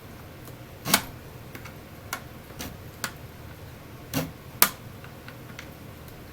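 Irregular sharp clicks and taps from hand work on a small plastic model building, as a stubborn piece is cut and pried at. The loudest clicks come about a second in and a little past the middle.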